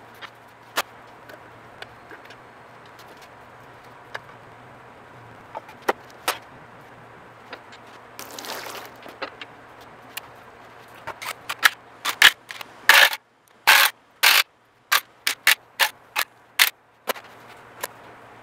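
Metal hand tools on a bare engine block: scattered clinks, then from about eleven seconds in a run of sharp ratchet-wrench clicks and clacks in quick strokes as the oil pan bolts are worked loose. A short scrape comes about eight seconds in, over a steady low hum.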